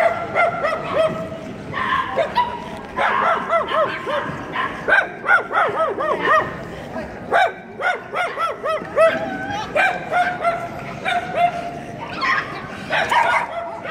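A dog yipping and whining over and over, in quick runs of short rising-and-falling yelps that are thickest in the middle, with some longer drawn-out whines later on.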